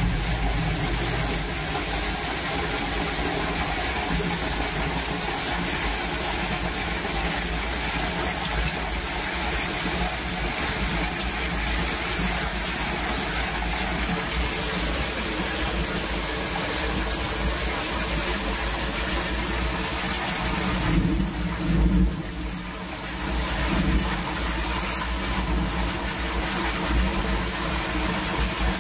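Muddy storm water gushing steadily from a drain pipe into a plastic catch basin, splashing onto the water pooled in it, with a short muffled dip about 22 seconds in.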